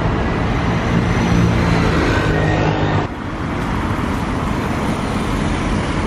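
Road traffic passing on a city street: a steady rumble of car engines and tyres. The sound changes abruptly about three seconds in.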